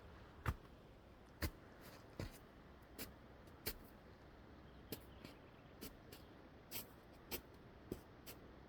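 A series of short, sharp clicks or snaps, about a dozen at uneven intervals, over a faint steady hiss; the loudest comes about half a second in.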